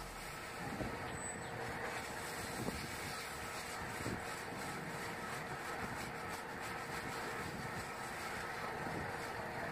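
Emery sheet held against a Hyundai Verna's brake disc as the engine, running in neutral, spins it: a steady hiss of abrasive on the rotor. The disc face is being roughened to cure brake pedal vibration.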